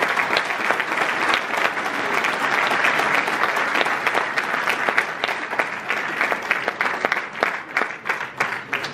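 Audience applauding, a dense steady clapping that thins out to scattered single claps over the last few seconds and stops.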